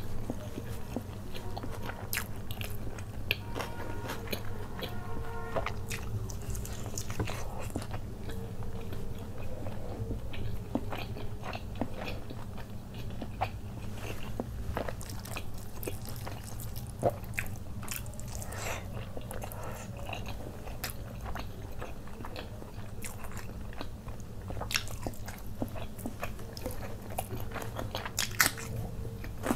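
Close-miked eating sounds: a man chewing mouthfuls of rice, butter chicken and fried chicken eaten by hand, with irregular sharp clicks and crunchy bites between the chews.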